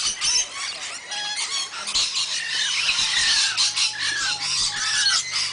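A flock of rainbow lorikeets screeching and chattering: a dense mass of shrill calls, with a run of short, falling calls repeated about every half second from about two seconds in.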